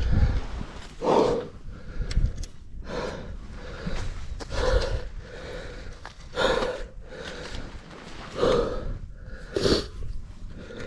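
A person breathing hard and loudly into the microphone after exertion, one heavy breath every second or two.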